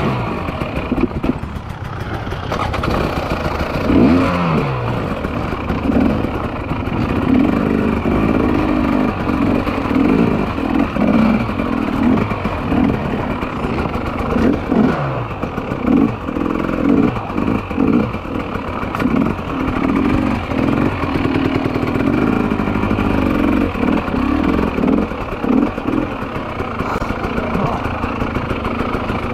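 Two-stroke 300 cc enduro motorcycle engine being ridden hard over rough ground. The revs rise and fall constantly in short blips and longer pulls, with some clatter from the bike.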